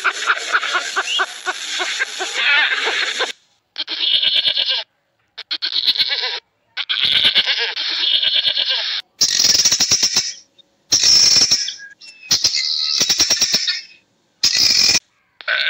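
Animal calls in a run of short, separately cut snippets, each stopping abruptly with brief silences between them.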